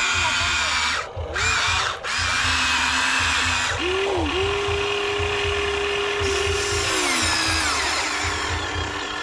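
Small electric motors of toy RC construction machines whining, cutting out briefly twice early on. About four seconds in a clearer whine rises, holds steady for about three seconds, then slides down and fades.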